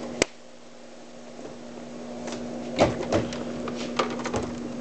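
Clicks and knocks from a cappuccino vending machine being handled: one sharp click just after the start, then a run of clicks and knocks from about three to four and a half seconds in, over a faint steady hum.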